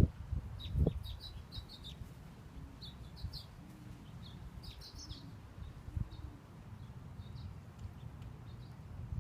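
Small songbirds chirping in short quick runs of high notes, with a few dull low thuds about a second in and again about six seconds in.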